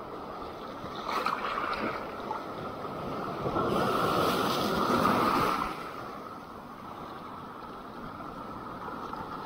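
Sea surf washing onto the shore in a steady hiss, with one larger wave breaking and rushing in about four seconds in for around two seconds before settling back.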